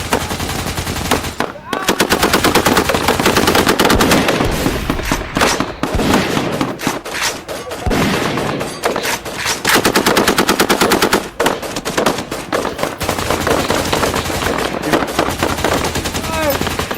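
Long bursts of rapid automatic fire, many shots a second, with short breaks between bursts.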